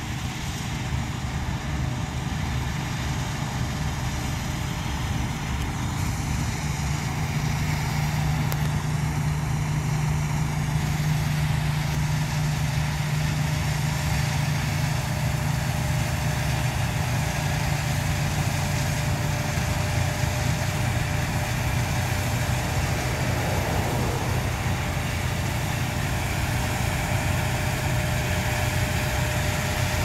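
CLAAS combine harvester running steadily as it cuts wheat, its engine and threshing drone with a low hum, growing a little louder over the first several seconds as it draws nearer.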